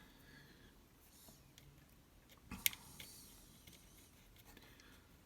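Faint small-parts handling while a set screw is fitted into a band switch assembly: scattered light ticks and one sharp click about halfway through.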